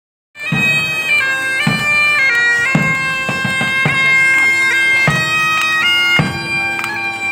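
Bagpipe playing a stepping marching tune over a steady drone, with a drum beating along underneath. The music starts abruptly just under half a second in.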